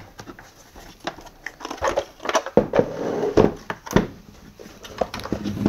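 Plastic motor housing of a Vax 6131 wet and dry vacuum being pulled apart by hand: scattered clicks and creaks, scraping and rubbing of the two halves, and one sharp knock about four seconds in.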